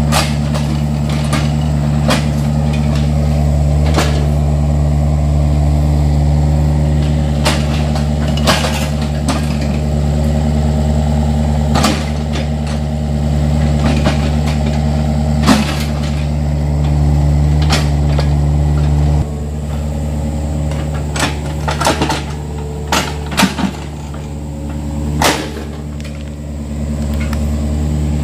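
Yanmar mini excavator's diesel engine running steadily while it digs, with scattered clanks and knocks from the bucket and arm working the soil. The engine note drops a little about two-thirds of the way through.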